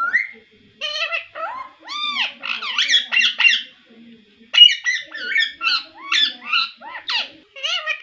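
Pet ringneck parakeet chattering in a quick run of short, squeaky calls that slide up and down in pitch, with a brief pause about four seconds in and the loudest call just after it.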